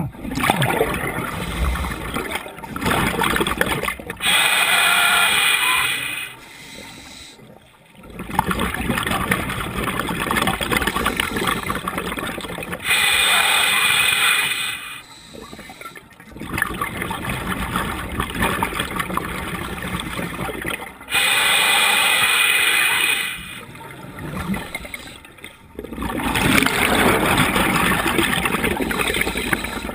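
Scuba diver breathing through a regulator underwater: a hissing draw of about two seconds, then several seconds of rumbling, gurgling exhaled bubbles. The cycle repeats about every eight seconds, three times.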